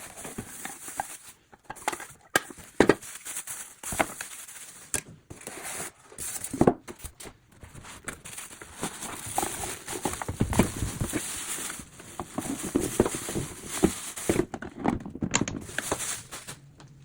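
Unboxing handling noise: packaging rustling and crinkling, with irregular knocks and clicks as the juice extractor and its parts are taken out and handled. The sound drops away abruptly near the end.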